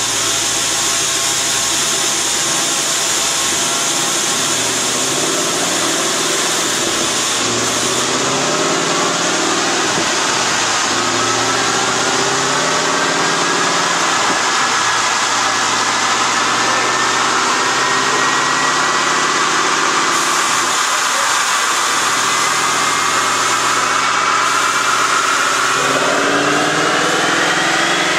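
2011 Ford Mustang GT's 5.0-liter V8 running loud and steady on a chassis dyno. Its pitch climbs slowly as the revs rise through a long pull, with a rising whine from about a third of the way in to the end.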